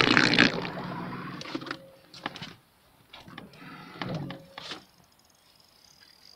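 Rustling and knocking of people shifting about in an inflatable boat, with a loud rustle at the very start that fades over a couple of seconds, then scattered knocks and clicks.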